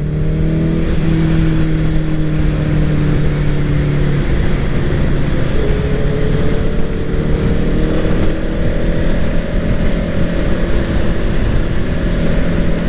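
Honda CBR 650R's inline-four engine running at road speed under a steady rush of wind. The engine note sags slightly for the first few seconds, breaks off about four seconds in, then climbs slowly as the bike picks up speed.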